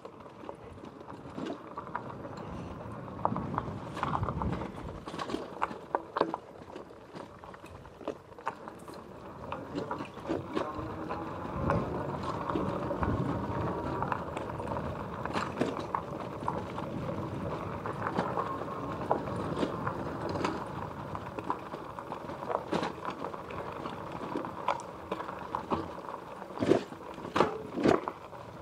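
E-bike rolling over a rough dirt and gravel trail: a steady rumble of tyres on the ground, with frequent clicks and rattles from the bike and its load as it bumps along, and a few louder knocks near the end.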